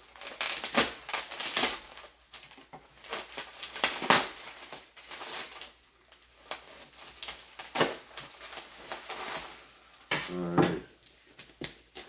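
Packaging being opened and unwrapped by hand: irregular crinkling, crumpling and rustling of wrapping, with small clicks and knocks.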